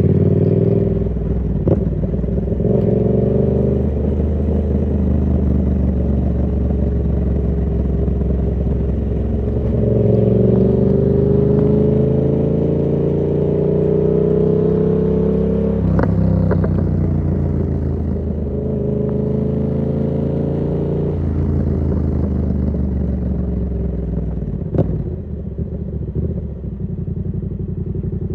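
2019 Yamaha MT-07's 689 cc parallel-twin engine running through an SC Project exhaust with its dB killer fitted, ridden under way. The pitch climbs steadily for several seconds as the bike accelerates, then drops sharply at a gear change about sixteen seconds in. Later the engine eases off to a lower, steadier note, with a brief click near the end.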